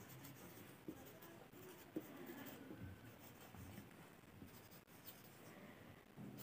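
Faint scratching of a marker pen writing on a whiteboard, with a few soft taps as the tip meets the board.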